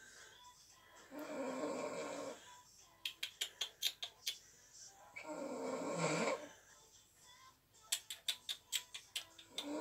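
A sleeper snoring in slow, regular breaths: three snores of about a second each, roughly four seconds apart. Between snores come runs of quick clicking or smacking sounds, several a second.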